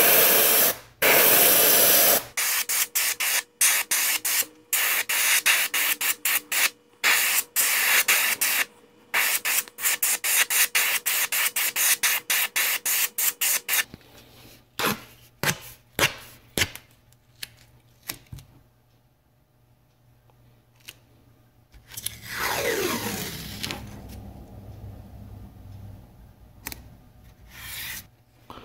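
An airbrush spraying paint onto a wooden popper lure: a steady hiss for about two seconds, then many short hisses as the trigger is pulsed, stopping about fourteen seconds in. Near the end, masking tape is pulled off and rubbed down onto the workbench.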